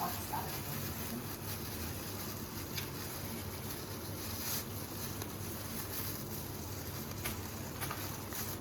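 Steady low background hum with a few faint brief rustles or taps.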